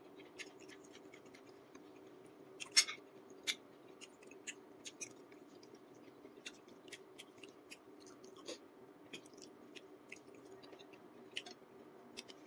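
Close-up eating sounds: chewing and wet mouth clicks, with a few sharper clicks of a metal spoon in a glass bowl, the loudest about three seconds in. A faint steady hum sits underneath.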